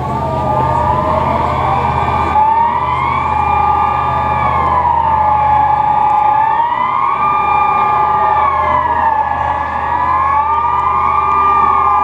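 Swiss civil-defence sirens sounding the 'general alarm' signal in a siren test: a loud wailing tone that rises and falls regularly, about one cycle every four seconds. In the first couple of seconds several sirens overlap out of step, and after that one siren dominates.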